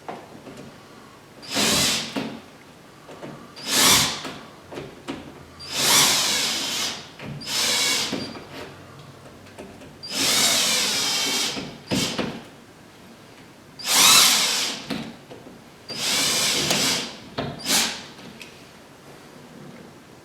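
Impact drill with a small bit, run in about eight short bursts to drill test holes into the wall while searching for a stud.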